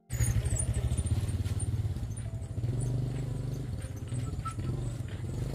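A small engine running steadily close by, a low rumble of rapid firing pulses that cuts in suddenly.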